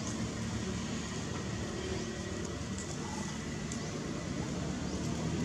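Steady low drone of a distant engine over outdoor background noise, with a few faint ticks in the middle.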